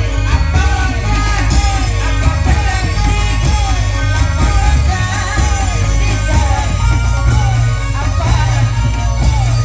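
Loud Indramayu reog (bleknong) dance music with a heavy bass beat and a high melody of short rising-and-falling phrases, about two a second.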